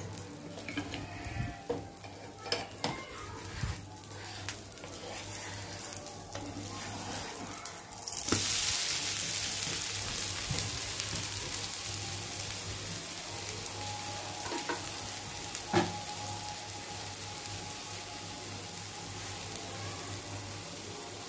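Dosa frying on a hot flat griddle (tawa): light taps and clicks of a utensil over a quiet hiss, then about eight seconds in a loud sizzle starts suddenly and settles into a steady frying hiss, with one sharp click later on.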